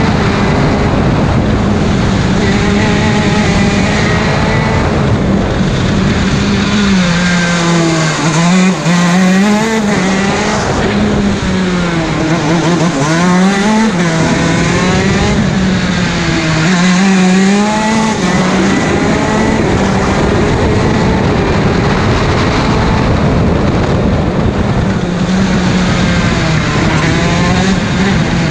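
KZ 125 shifter kart's 125cc two-stroke engine at racing revs, heard onboard, its pitch dipping and climbing back several times.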